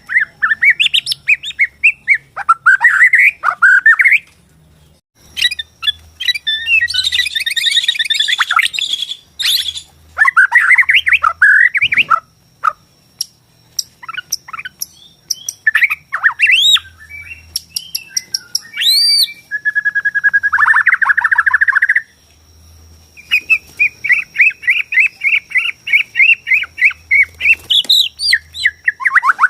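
White-rumped shama (murai batu) of the Borneo type singing a varied song of loud whistles, rapid trills and harsh rattling phrases, with brief pauses between phrases and a long run of quick repeated notes near the end.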